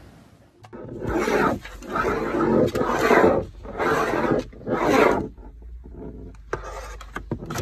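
Blue-and-yellow macaws screeching: about five loud squawks in a row, each about half a second long, then a few shorter, quieter ones near the end.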